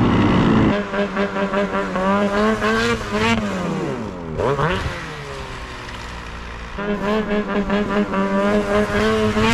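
Two-stroke snowmobile engine revving. It holds steady high revs, drops off about three seconds in, gives a short sharp rev, then settles back to steady revs before easing off near the end.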